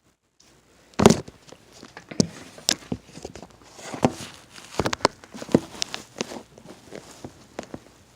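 Handling noise of a camera being picked up and moved: irregular knocks, clicks and rustles, the loudest about a second in.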